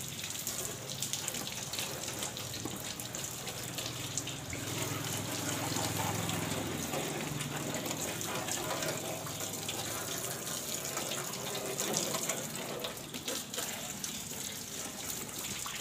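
Water from a garden hose spraying and splashing steadily over a car engine bay and its bonnet.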